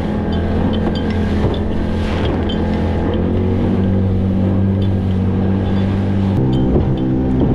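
Motorboat engine running steadily while the boat is under way, with wind buffeting the microphone. About six seconds in, the engine's hum changes abruptly to a different steady note.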